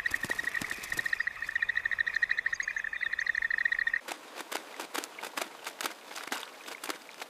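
A frog's rapid pulsing trill held on one high pitch. About four seconds in it cuts off abruptly, leaving scattered small clicks and ticks.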